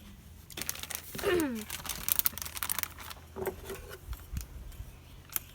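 A series of sharp clicks and light knocks from plastic items being handled, clustered about two seconds in, with a short falling vocal sound a little over a second in and a brief hum later.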